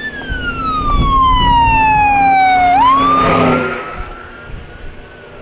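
A siren wailing: its pitch falls slowly for nearly three seconds, then sweeps quickly back up and fades away. A low steady hum runs under it for the first few seconds.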